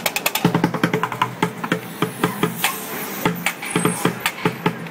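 Bucket drumming with sticks on upturned plastic buckets and other found objects: a fast, dense rhythm of deep bucket thuds mixed with sharper clacks.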